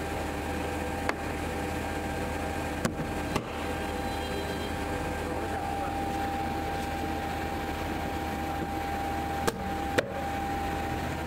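Steady hum of running factory machinery, with several constant tones over a low drone, broken by a few sharp knocks.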